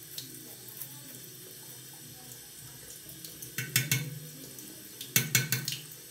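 Tap water running steadily into a bathroom sink. Twice, about halfway through and again near the end, there are a few short, louder splashes and knocks.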